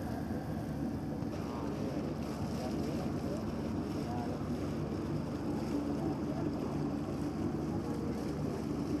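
Ship engines running with a steady low drone, as a passenger ship pulls away from the harbour, with faint distant voices behind.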